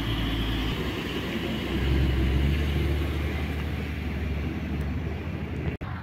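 Diesel engine of a dump truck running as it pulls away, a low rumble that grows louder about two seconds in and then eases off; the sound drops out for an instant near the end.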